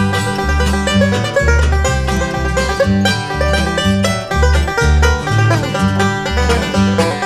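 Instrumental break of a bluegrass song: banjo picking over guitar and a steady walking bass.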